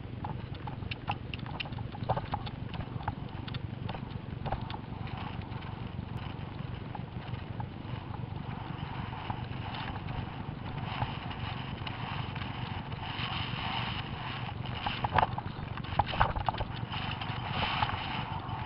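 A horse galloping, heard through a camera carried by horse or rider: hoofbeats over a steady low rumble, with a few louder thumps near the end.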